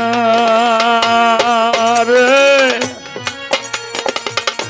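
Baul folk song: a singer holds a long, slightly wavering note over steady instrumental accompaniment, breaking off about three seconds in. Hand-drum strokes in a quick rhythm carry on after the voice stops.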